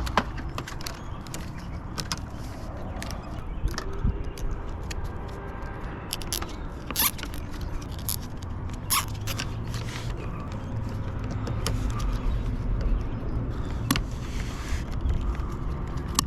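Scattered clicks, clinks and scrapes of small hard objects being handled, over a steady low rumble.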